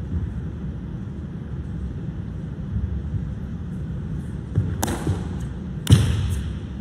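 Two sharp smacks about a second apart, the second louder and ringing briefly in the hall, from a changquan performer's strikes and footwork, over a steady low rumble of room noise.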